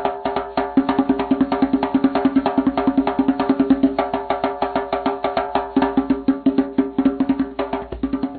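Music: a fast, even run of short struck percussive notes, several a second, over steady sustained tones.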